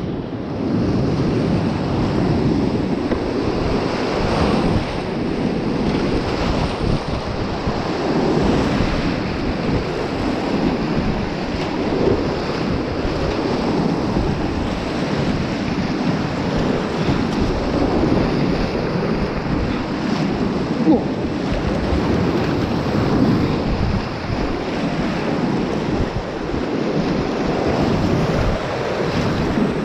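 Whitewater rapids rushing loudly and steadily around a kayak, heard from inside the rapid, with one brief sharp hit about two-thirds of the way through.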